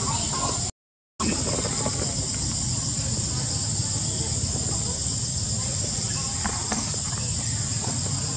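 Steady outdoor insect chorus with a continuous high-pitched drone. The sound cuts out completely for a moment about a second in.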